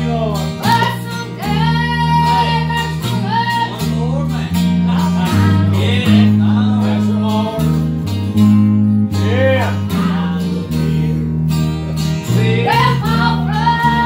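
Live gospel song with acoustic guitars and an electric bass guitar, the bass holding long low notes that change about once a second, with singing over the top.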